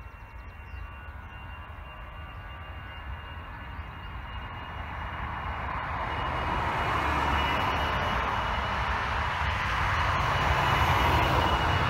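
Twin-engine Airbus jet airliner at takeoff power, rolling down the runway: the jet roar grows steadily louder through the second half, with a deep rumble underneath.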